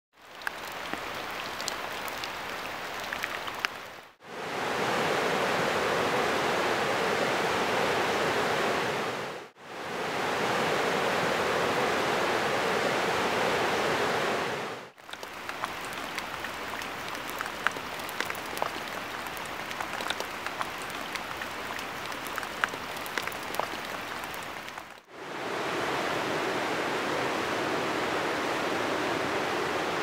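Rushing river water running over rocks, in a string of separate recordings joined by brief fades. Three stretches of loud steady rushing alternate with quieter stretches of softer water noise that carry scattered light ticks.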